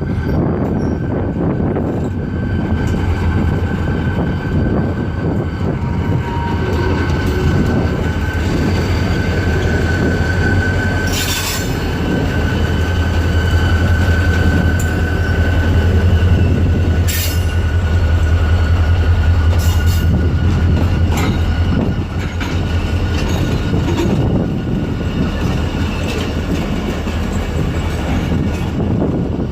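Train moving slowly through track switches: a long, steady wheel squeal over a deep continuous rumble. The squeal fades out a little past halfway, and a few sharp clanks of wheels over rail joints sound through it.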